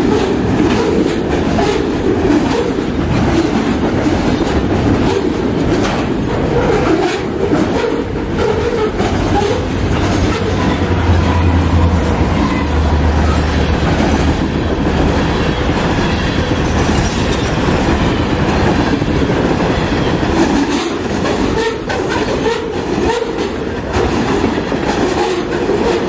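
Canadian National mixed freight train rolling past at speed: a steady rumble of steel wheels on rail with rapid clicks as the wheels cross rail joints. A low steady hum rises for a few seconds near the middle.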